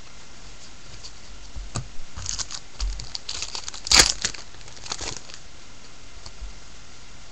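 Baseball cards handled and shuffled close to the microphone: a flurry of crinkly rustling and crackles from about two to five seconds in, loudest about four seconds in.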